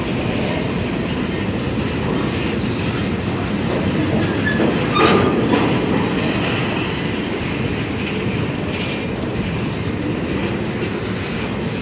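Empty centerbeam flatcars of a freight train rolling past, steel wheels rumbling and clicking over the rails, with a sharp clank about five seconds in.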